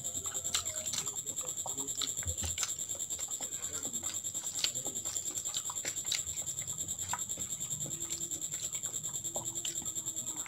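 Fingers mixing rice with dal and omelette on a plastic plate: soft, irregular squishes and small clicks, over a steady high-pitched whine in the background.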